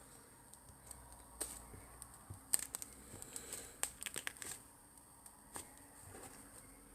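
Slime being handled: faint, scattered crackling clicks that come in small clusters.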